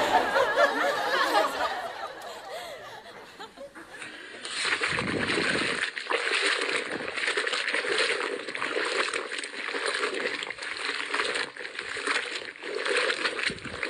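Hands squeezing and kneading a soapy cloth in a metal basin of water, with wet sloshing and squelching. It starts about four seconds in, after a short stretch of voices and laughter.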